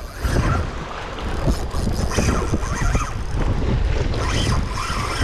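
Wind buffeting the microphone over the wash of waves on the shore: a dense, rumbling noise with no steady tone.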